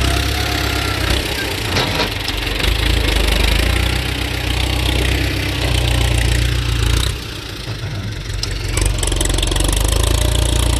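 Ford 6610 tractor's four-cylinder diesel engine running steadily while pulling a disc plough through a field; its level drops for a second or two about seven seconds in, then comes back up.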